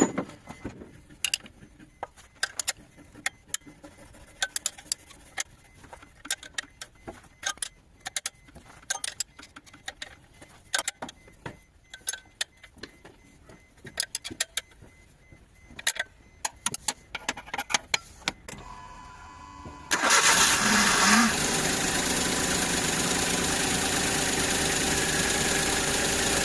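Scattered sharp clicks and taps for most of the stretch. Then, about twenty seconds in, a car engine starts suddenly and keeps running steadily.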